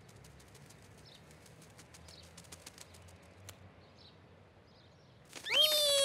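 Quiet outdoor ambience with faint bird chirps and a quick run of soft clicks. Near the end a sudden loud sound cuts in, gliding up and then slowly down in pitch.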